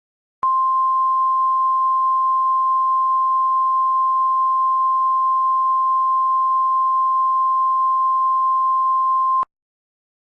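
Emergency Alert System attention tone: a single steady, loud high tone held for about nine seconds, starting about half a second in and cutting off abruptly near the end. It signals that a spoken emergency alert message is about to follow.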